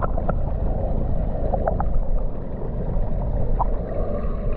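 Muffled underwater sound from a camera held below the water's surface: a steady low rumble with a few faint short pops.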